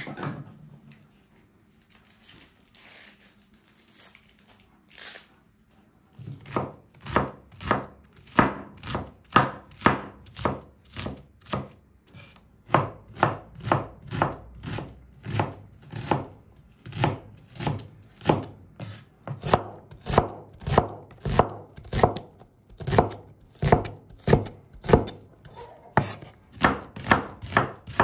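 Large knife chopping onions on a wooden cutting board. After a few quieter seconds the strikes settle into a steady rhythm of about two a second from roughly six seconds in.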